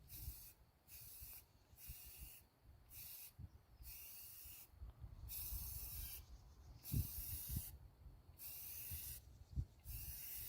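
Aerosol spray-paint can hissing in short repeated bursts, about one a second with brief gaps between, as fast-dry satin paint is sprayed on in passes. Low bumps and rustles from handling are heard under the spray.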